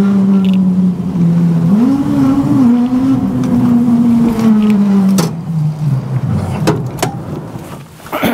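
Small vehicle's engine running steadily as it drives. Its pitch rises briefly about two seconds in, then falls and fades as it slows over the last few seconds, with a few sharp clicks.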